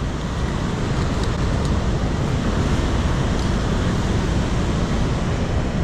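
Steady rushing of water pouring over a low-head dam spillway.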